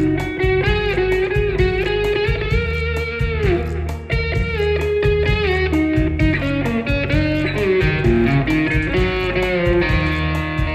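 Instrumental break in a blues song: a lead electric guitar plays a melody with bent notes over a bass line and a steady drum beat.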